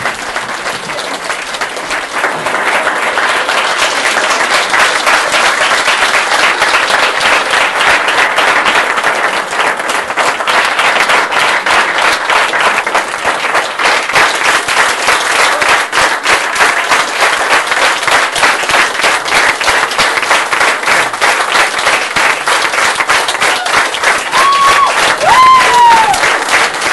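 Theatre audience applauding: dense, sustained clapping from a full house. Near the end a brief high call rises and falls over the clapping.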